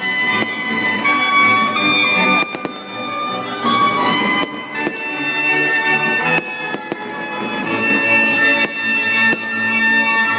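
Orchestral music with strings and brass, played loud for a fireworks display, with a few sharp firework bangs cutting through it.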